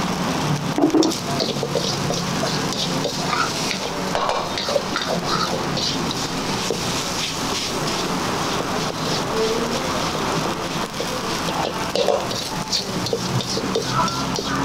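Fried rice sizzling steadily in a hot steel wok on a gas burner while a metal spatula stirs and scrapes it around the pan.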